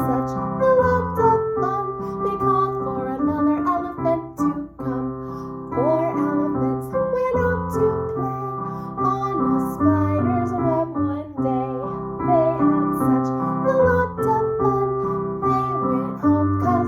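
Music: piano with a wavering melody line carried above it.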